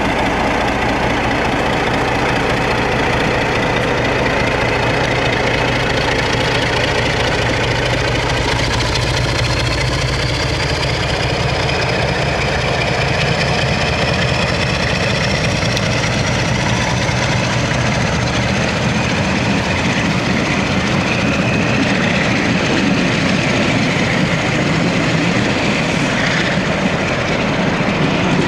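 British Rail Class 47 diesel locomotive's engine running as it hauls its coaches past and away, with a high whine that rises slowly in pitch from about a third of the way in. Toward the end a second diesel locomotive, a Class 66 hauling container wagons, comes up on the other line.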